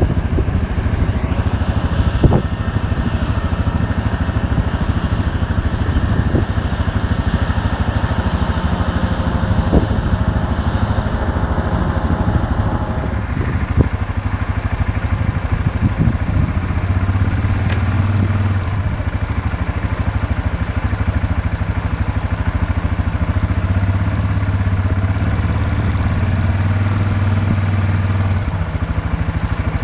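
Claas forage harvester and the tractor beside it running steadily while chopping standing maize for silage: a continuous diesel drone with a low hum that grows a little stronger in the second half.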